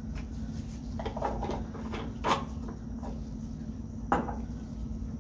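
Lab reagent bottles being handled and set down on a benchtop: a few light knocks and clinks, the loudest about two seconds in and a sharp one about four seconds in, over a steady low hum.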